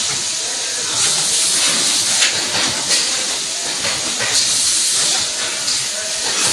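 Hydraulic CNC tube bending machine running, giving a loud, steady hiss that swells and eases every second or so.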